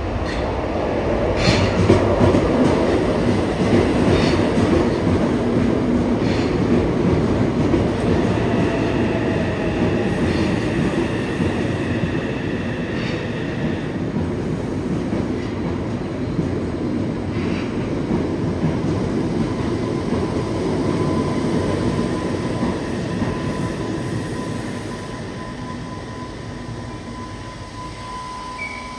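Yokohama Municipal Subway Blue Line 3000S-type train, with a Mitsubishi IGBT-VVVF inverter, pulling into an underground station. Its wheels rumble and clack over the rail joints with a few sharp clicks, and the inverter adds faint steady tones. The sound fades over the last few seconds as the train slows to a stop.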